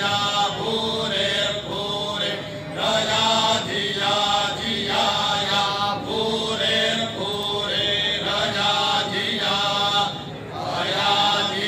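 Group of men reciting Vedic mantras in unison, with the lead voice on a microphone. The chant runs in steady phrases of a second or two, with a brief breath pause near the end.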